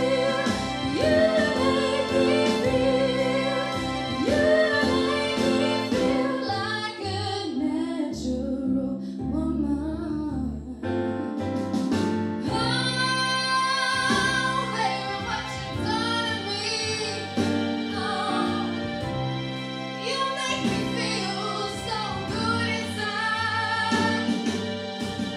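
A woman sings solo into a handheld microphone over instrumental accompaniment, with vibrato on held notes. About six seconds in, the accompaniment thins to a sparse stretch; near the middle the full backing comes back and her voice climbs higher.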